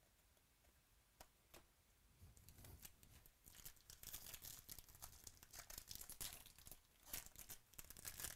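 Faint tearing and crinkling of a 2017 Topps Chrome baseball card pack wrapper being ripped open by hand. Two soft clicks come first, then a quick run of tearing and crinkling from about two seconds in.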